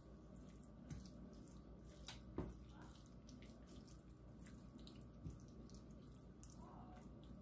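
Faint crackle of food frying in a pan, with a few soft clicks and taps as a silicone spatula stirs it.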